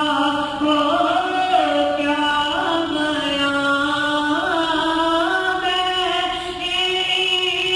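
A student's voice reciting a naat, a devotional chant in praise of the Prophet, sung solo without instruments in long held notes joined by slow melodic glides.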